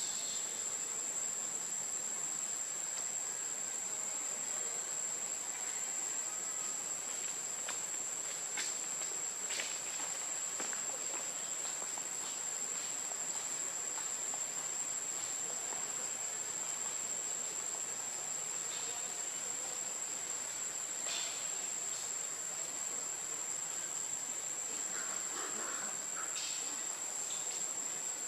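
Steady high-pitched insect chorus, crickets or cicadas droning on one unbroken tone, with a few faint clicks scattered through.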